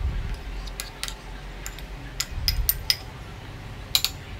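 Steel spoon clinking and scraping against a glass mixing bowl while stirring damp roasted semolina, a run of irregular sharp clinks over a low rumble of handling.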